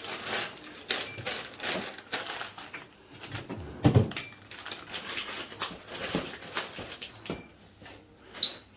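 Groceries being handled and packed into a fridge: irregular rustling, clicks and knocks of packages and fridge parts, with one louder knock about four seconds in.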